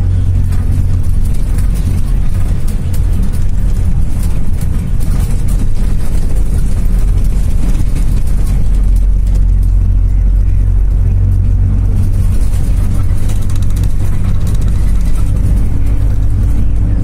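Karosa C934E city bus driving, heard from inside the passenger cabin: a steady low drone of its diesel engine and road noise, with light rattles throughout.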